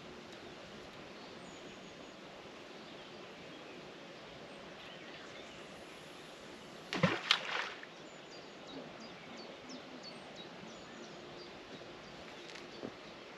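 Steady riverbank ambience with faint, short high bird chirps, broken about seven seconds in by a brief, loud cluster of knocks and clicks.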